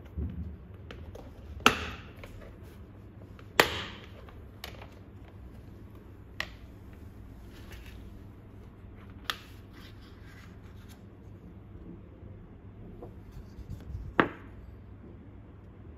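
The latches of a black plastic tool carrying case snapping open: two sharp clicks about two seconds apart near the start. After them come a few scattered clicks and knocks, with one more loud click near the end, as the lid is opened and the paper insert card is handled.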